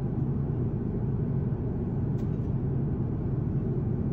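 Steady low rumble of an airliner cabin in flight: engine and airflow noise heard from inside the plane, even and unchanging.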